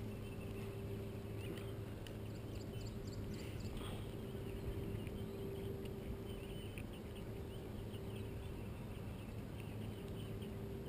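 Spinning reel being cranked to retrieve a cast spinner lure, giving a light, irregular ticking over a steady low hum.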